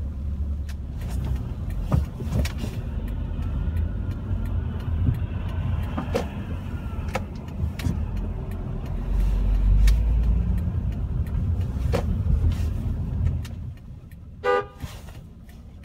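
Steady road and engine rumble heard from inside a car driving on wet city streets, with scattered clicks and knocks, and a brief pitched tone near the end.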